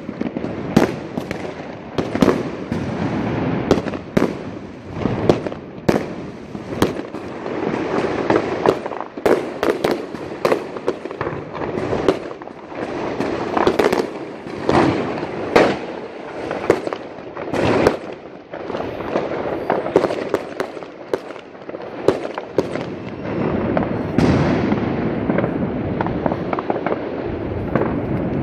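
Many New Year's fireworks and firecrackers going off at once: a continuous barrage of sharp bangs over a constant crackle of more distant ones. Near the end the close bangs thin out, leaving the steady crackle.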